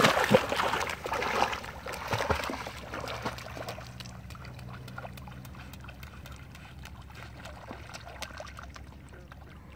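A dog splashing through shallow pond water and setting off swimming, loud at first and fading over the first few seconds to faint lapping water.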